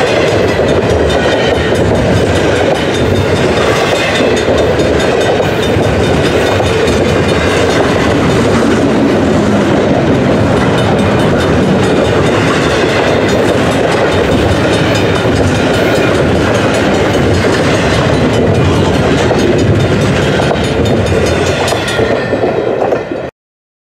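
Loud, steady rumble and clatter of a long double-stack intermodal freight train's cars rolling past on the rails, cutting off suddenly near the end.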